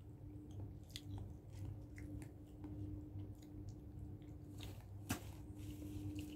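Close-up chewing of egg, with small scattered clicks and crackles of eggshell being peeled by hand and one sharper click about five seconds in. A steady low hum runs underneath.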